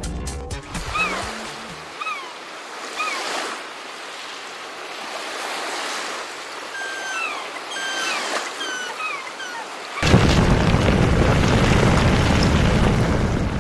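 Ocean surf with short, high, falling calls over it. About ten seconds in, a much louder deep rushing rumble takes over.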